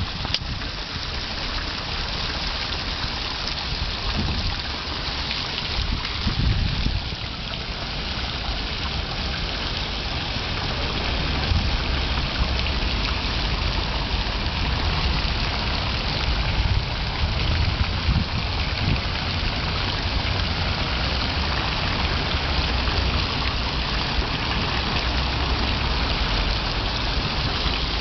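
Fountain water jets falling and splashing into a stone basin: a steady splashing patter, with a low rumble underneath.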